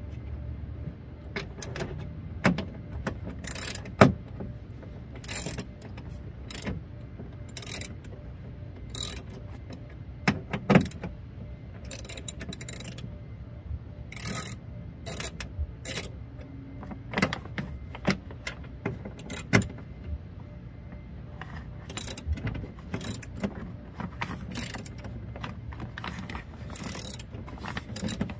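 Irregular metal clicks, taps and rattles of hands and tools working inside a Nissan Maxima's bare door shell with the trim panel off, with a few sharper knocks among them.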